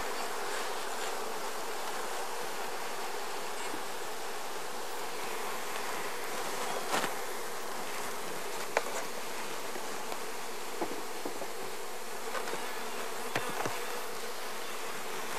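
Honey bees buzzing steadily around a hive newly stocked with a package colony, with a few light knocks as the wooden hive covers are set in place and handled.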